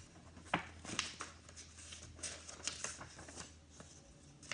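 Pages of a picture book being handled and turned: scattered soft rustles and taps, over a faint low steady hum.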